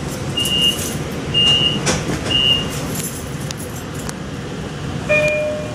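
Door-closing warning beeps on a Long Island Rail Road C3 bi-level coach: a short high beep about once a second, the last one about two and a half seconds in. Under it is the steady low rumble of the train standing at the platform. Near the end a short, lower two-note tone sounds once.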